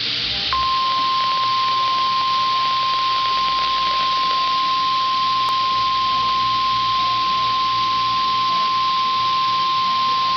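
NOAA Weather Radio warning alarm tone: a single steady high tone that starts about half a second in and holds for about ten seconds, over a constant hiss of radio static. The tone is the signal that an emergency weather alert broadcast follows.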